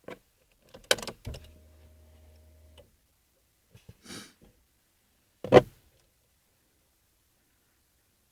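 Car door and cabin handling sounds: a sharp clunk, then a short steady electric hum lasting about a second and a half, a brief hiss, and a heavy door slam about five and a half seconds in.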